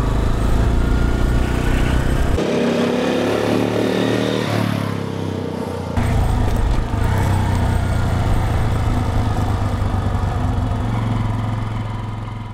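The 1955 NSU Max Special 250's 247cc single-cylinder air-cooled engine running as the motorcycle is ridden. The revs rise and fall, heavy wind rumble from the bike-mounted microphone is mixed in, and the sound fades out near the end.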